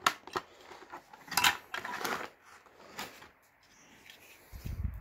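Handling of the power adapter and plug pieces from the box: a few light clicks and knocks spaced about a second apart, a brief rustle, and a dull low thump near the end.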